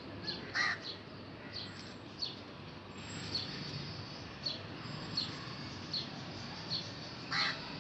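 Birds calling: a short, high chirp repeated about once or twice a second, and two louder, lower calls, one about half a second in and one near the end, over a steady outdoor background hiss.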